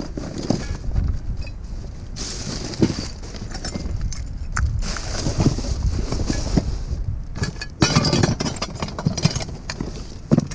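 Junk being handled and pulled from a curbside trash pile: scattered knocks and clatters of scrap, with bursts of rustling about two seconds in and again near the end, over a steady low rumble.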